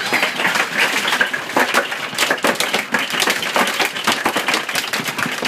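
Giant hailstones pelting the house, a loud, dense and irregular clatter of hard impacts.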